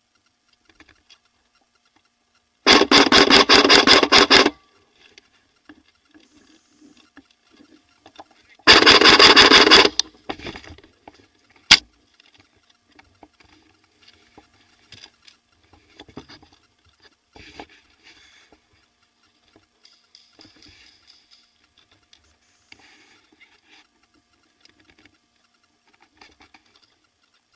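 Airsoft electric gun firing two full-auto bursts, one about two seconds long and one about a second and a half, rapid even clicks, with a single sharp crack a couple of seconds after the second burst. Faint rustling and scuffing of movement between.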